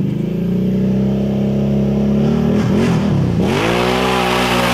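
ATV engine running at a steady throttle, then the revs dip and climb sharply about three seconds in as the quad drives into a mud hole. A rush of splashing water and mud joins it near the end.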